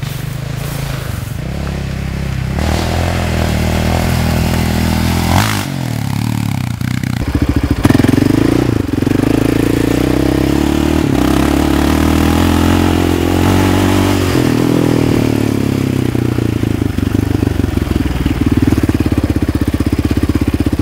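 Sport quad (ATV) engine running under way as it is ridden, its pitch rising and falling with the throttle. It drops off about five seconds in, then climbs back, loudest around eight seconds in.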